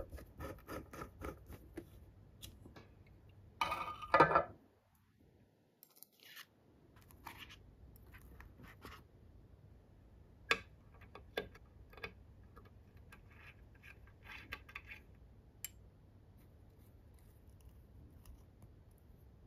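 Small metal parts of an engine model kit handled with a hex key and tweezers: quick small clicks as cap screws are turned into the metal block, a louder metallic clatter about four seconds in, then scattered light clicks and taps on small metal pieces.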